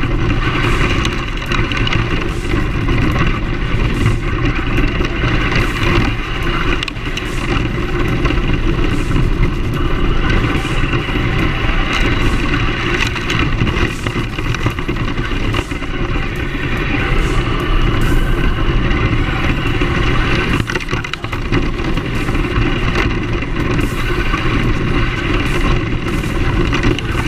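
Team Associated SC10 brushless short course RC truck driving, heard from a camera mounted on it: a steady motor and drivetrain whine mixed with tyre noise over asphalt and grass, with scattered knocks from bumps.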